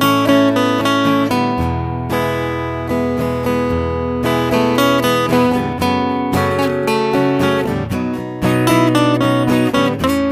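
Background music: an acoustic guitar playing a run of quickly picked and strummed notes.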